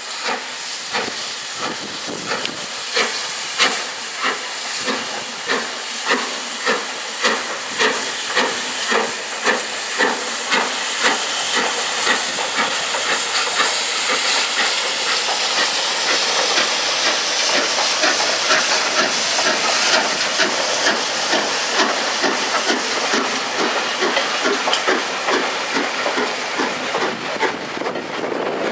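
LMS Coronation Class 4-6-2 steam locomotive Duchess of Sutherland, a four-cylinder engine, working a train at low speed and gathering pace. Its sharp exhaust beats come about one and a half a second at first, then quicken and blur into a continuous steam hiss.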